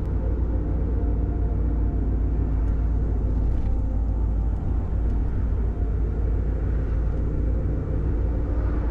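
Steady low rumble of engine and road noise inside a Ford Super Duty pickup's cab while it drives along the highway.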